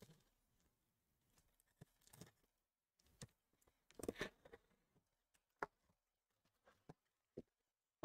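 Near silence with a few faint, short taps and rustles, the loudest cluster about four seconds in, from hands working at the taped top of a cardboard shipping case to open it.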